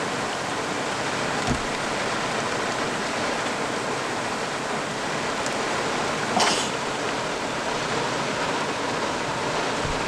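Heavy downpour on a vehicle, heard from inside the cabin as a steady hiss of rain, with a short louder rush about six and a half seconds in.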